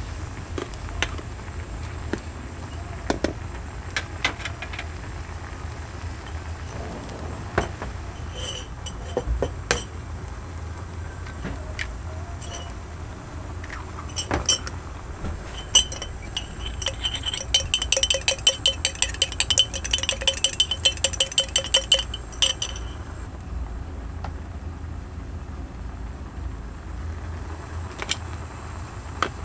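Kitchen clatter of metal utensils clinking against a metal pot, with scattered clinks and then a rapid run of ringing clinks, about five a second for some five seconds, past the middle. A steady low hum lies underneath.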